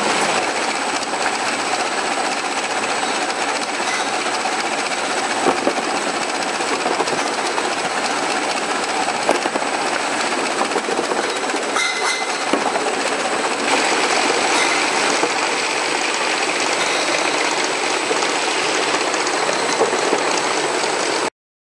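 Packaging-line belt conveyors and roller beds of a tray-stripping machine running steadily, with scattered clicks and knocks as cases move through and a steady high-pitched whine throughout. The sound cuts off suddenly near the end.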